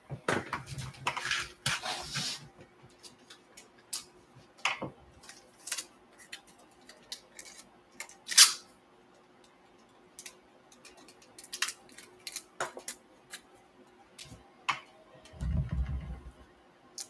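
Hands handling a trading card in a hard plastic case and its cardboard box: scattered clicks, taps and rustles, with one sharp click about eight seconds in and a low thump near the end.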